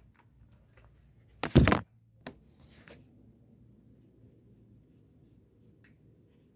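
A brief loud rustling knock about one and a half seconds in as the watercolor paint set and paper are handled, followed by a smaller click and a short faint hiss. After that only faint room tone.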